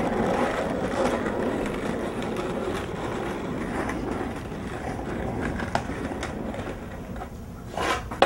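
Skateboard wheels rolling on parking-lot pavement: a steady rumble that gradually fades, with a few faint clicks.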